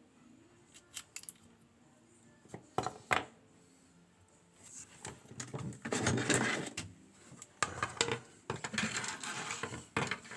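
Small metal parts and tools of a dismantled ABUS D6 dimple euro cylinder clicking and clattering as they are handled: a few sharp clicks in the first three seconds, then two longer stretches of rattling metal.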